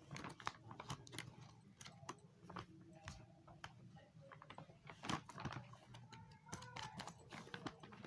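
Faint, irregular crunching and crackling of play sand being scooped and pushed into a plastic bag, with soft clicks and rustles from handling.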